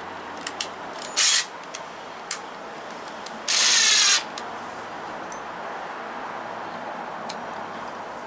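AEG cordless impact driver driving screws into a treated pine sleeper: a short burst about a second in, then a longer run of under a second at about three and a half seconds, with a few small clicks from handling the screws in between.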